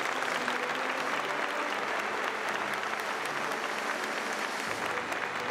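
Large audience applauding with steady, dense clapping.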